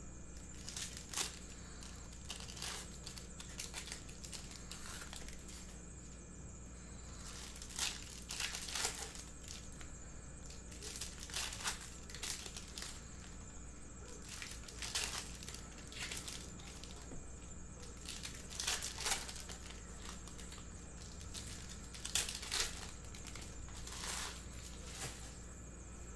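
Plastic wrappers of trading-card packs being torn open and crinkled, in irregular short bursts, over a steady low hum.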